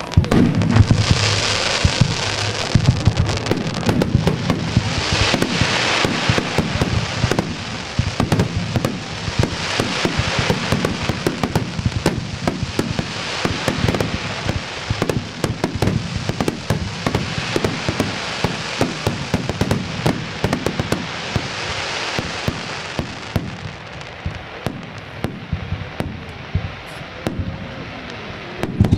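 Aerial fireworks display: a rapid barrage of shell bursts, each a sharp bang, over waves of dense crackling from the bursting stars. The crackle thins out about three-quarters of the way through while single bangs go on.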